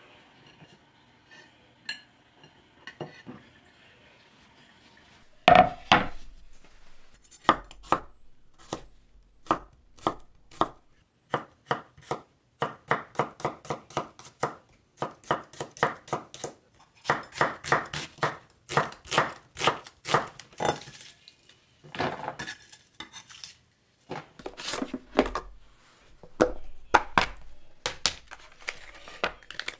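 Chef's knife slicing garlic cloves on a wooden cutting board: a long run of quick knife strikes, about three a second, with brief pauses. It starts about five seconds in, after a few faint light taps.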